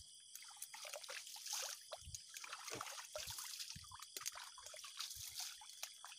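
Water trickling and dripping in small irregular splashes.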